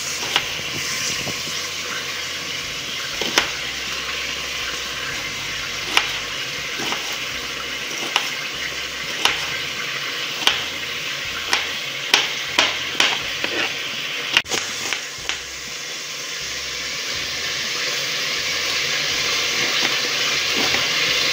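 Knife cutting onion on a plastic cutting board, irregular sharp taps roughly once a second, over the steady sizzle of chicken searing in a pot. The sizzle grows louder over the last few seconds.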